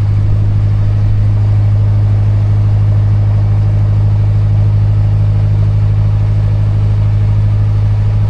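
Narrowboat's diesel engine running steadily with a low, even hum, held at raised revs to push the boat on against the wind.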